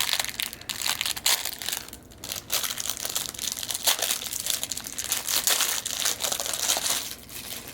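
Plastic packaging crinkling and rustling in irregular bursts as it is handled, easing off near the end.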